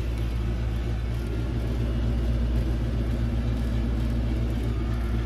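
Air conditioner running inside the small camper, a steady low hum.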